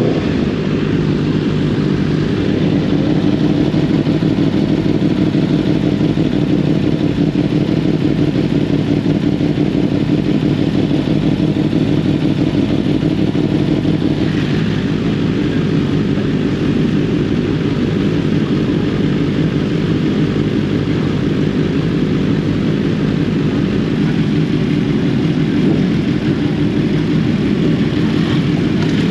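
Sport motorcycle engine running at a steady, even pitch while cruising.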